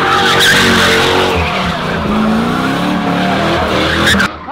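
Car drifting: tyres squealing and the engine revving, its pitch rising and falling. The sound breaks off suddenly near the end.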